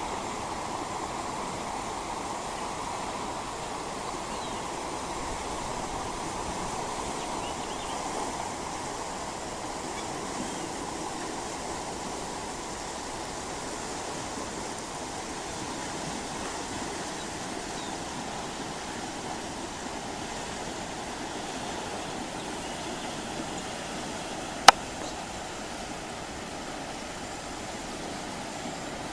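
Steady rushing of a fast-flowing river running high. Near the end, a single sharp click stands out as the loudest sound.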